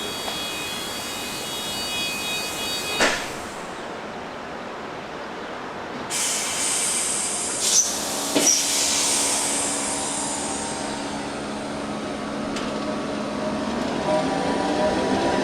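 SNCB AM80 electric multiple unit pulling away from a station. Steady high tones and a sharp click come first, then a burst of hiss and a couple of knocks about halfway. After that the traction motor whine sets in and starts rising in pitch near the end as the train gathers speed.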